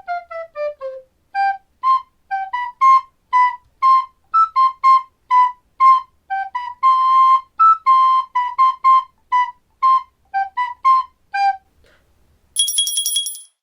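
Outro jingle: a flute-like melody of short, separate notes that opens with a quick falling run. Near the end a bright chime rings.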